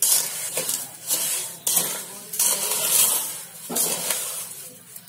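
Wooden spatula stirring wet granulated sugar in a metal pot, with a gritty scraping stroke roughly every three-quarters of a second.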